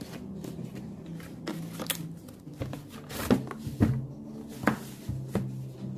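Hard plastic tool carrying case being handled: a series of sharp clicks and knocks, loudest about halfway through, over a steady low hum.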